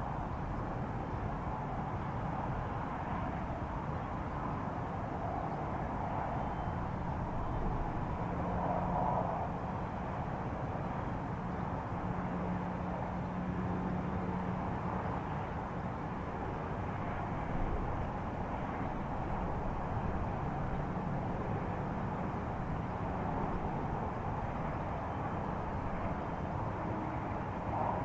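A steady, low rumbling drone of the kind uploaded as a strange sound from the sky, with a faint low hum in it and small swells in level about a third and two thirds of the way through.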